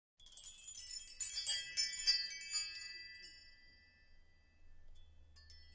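Sparkling chime and bell tinkles of a logo intro sting: a cluster of high struck notes rings out over the first three seconds, then fades, and a few faint tinkles return near the end.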